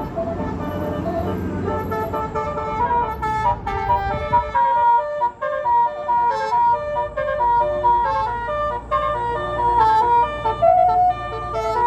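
Bus telolet basuri horn, a multi-tone electric horn, playing a tune in short stepped notes that start about three seconds in. A low engine rumble runs underneath and drops away about four and a half seconds in.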